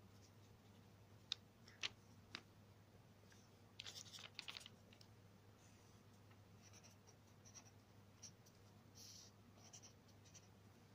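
Faint scratching of a ballpoint pen writing on notebook paper, in short separate strokes, with a denser run of strokes about four seconds in.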